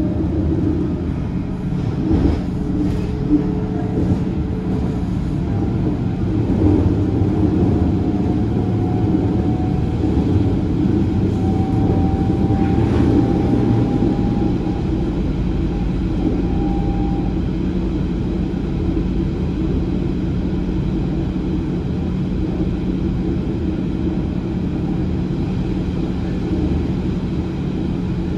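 Passenger train running along the track, heard from inside the carriage: a steady rumble with a low hum and a faint whine that rises slowly in pitch in the first half. A few sharp clacks of the wheels on the rails come about two to four seconds in.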